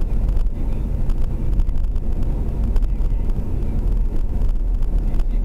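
Steady low rumble of a car driving at road speed, engine and tyre noise heard from inside the cabin.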